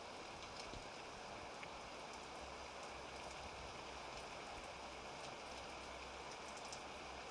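Steady rain of a thunderstorm, with scattered raindrop ticks. A low rumble of distant thunder sits underneath from about two seconds in until near the end.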